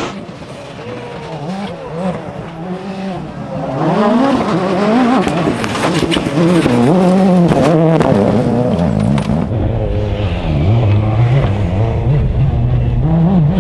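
Rally car driven hard on a gravel stage, approaching and getting louder from about four seconds in, its engine revving up and down through gear changes, with a run of sharp cracks between about six and eight seconds in.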